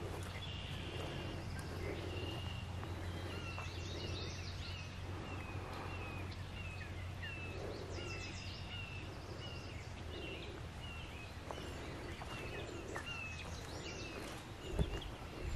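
Footsteps on a soft, muddy trail at an even walking pace, while a bird repeats a short high chirp about twice a second. A single sharper thump near the end is the loudest sound.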